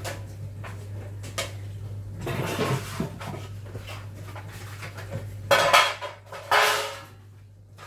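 Metal baking tins and pans clattering and scraping as they are handled and stacked out of a cupboard, with scattered knocks, a scraping stretch a little after two seconds in, and the two loudest clatters at about five and a half and six and a half seconds in. A steady low hum runs underneath.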